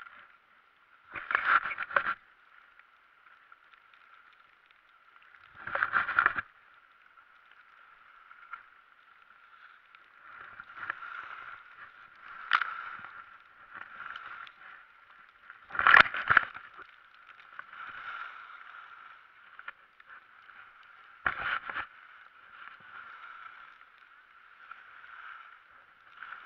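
Skis sliding and scraping over packed snow as a skier moves down a slope, a steady thin hiss with four louder rushes of noise, each about a second long.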